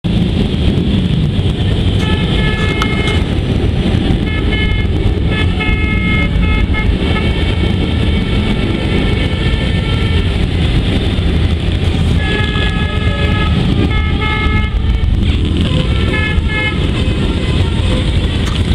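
Motorcycle engines rumbling steadily, with horns tooted in short blasts in several clusters, the longest run about twelve seconds in.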